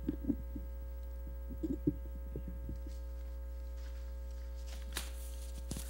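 Steady electrical hum on the microphone feed, with a few faint knocks and rustles from desk handling; the loudest comes about two seconds in.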